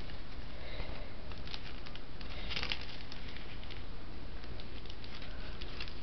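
Plastic baggie being handled, rustling and crinkling in scattered small crackles over a steady background hiss, with a brighter burst of crinkling about two and a half seconds in.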